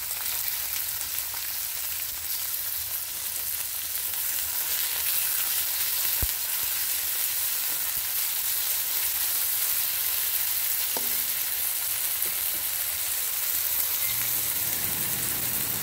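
Strips of chicken frying in hot oil with garlic and red onion, a steady sizzle, stirred now and then with a spatula. One sharp tap about six seconds in.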